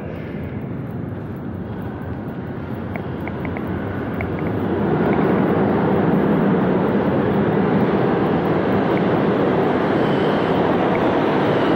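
New York City subway train running, its noise swelling about five seconds in and then holding steady and loud. A few faint, brief high squeaks come in the first half.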